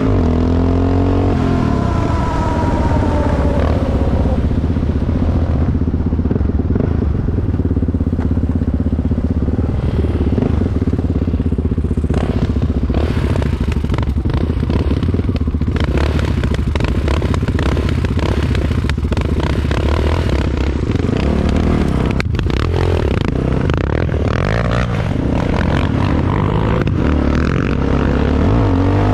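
Yamaha Raptor 660 quad's single-cylinder engine running under way, its pitch shifting a couple of seconds in and then holding fairly steady. Scraping and clattering come through in the middle stretch.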